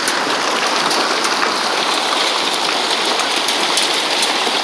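Hail mixed with rain pelting down: a dense, steady patter with many small, sharp ticks from hailstones striking.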